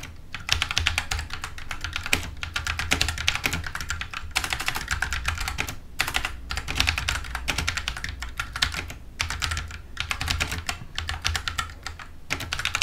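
Fast typing on a computer keyboard: rapid runs of key clicks broken by brief pauses between words, over a steady low hum.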